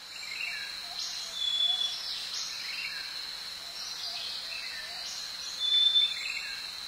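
Nature ambience: a steady high-pitched insect drone with birds chirping and calling over it, the loudest calls about a second and a half in and near the end.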